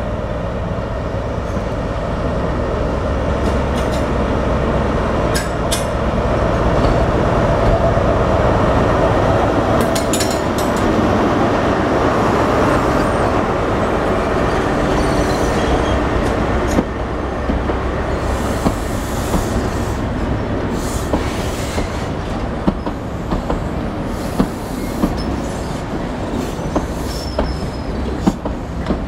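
InterCity 125 High Speed Train rolling slowly past. The leading Class 43 diesel power car's engine rumble builds as it approaches. Then the Mark 3 coaches go by, the wheels squealing at first and later clicking steadily over the rail joints.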